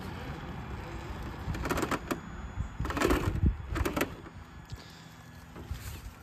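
Small brushed electric motor and gearing of a Traxxas TRX-4 RC crawler whirring as the truck climbs, with three louder crunching bursts about two, three and four seconds in as the tires scrabble over the dirt and rocks; the motor then eases off.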